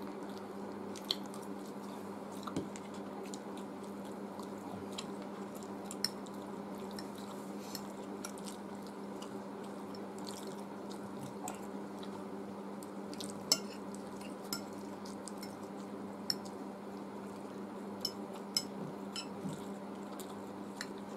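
Eating at the table: a metal fork clicking and scraping on a glass plate, with soft chewing of noodles, as scattered sharp clicks, the loudest about halfway through. A steady low hum runs underneath.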